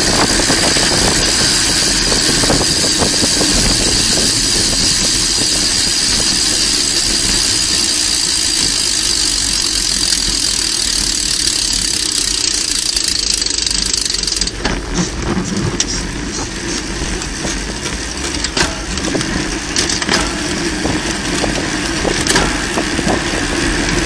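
Wind rushing over a bike-mounted camera's microphone, with tyre and road noise from a road bicycle riding at speed. About halfway through the steady high hiss cuts off and the noise drops, leaving an uneven rumble with scattered light clicks.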